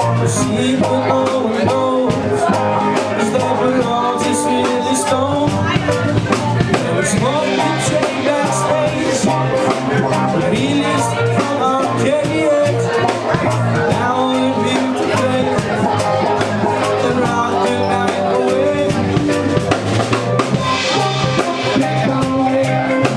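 A live rock band playing an instrumental passage: a drum kit with snare, rimshots and bass drum keeping the beat under held pitched instrument notes.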